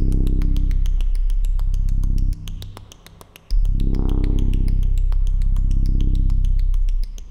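Moog System 55 modular synthesizer playing a low bass drone with a fast, even ticking pulse, about six clicks a second. The drone cuts out about two seconds in and comes back a second later. Its filter then opens so the tone brightens for a moment, then closes again.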